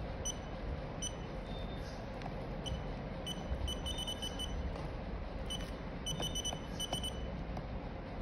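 Short, high electronic beeps, some single and some in quick runs, over steady background noise.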